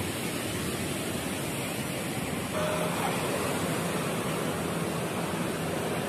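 Steady wash of breaking surf on a beach, an even rushing noise that gets a little louder about two and a half seconds in.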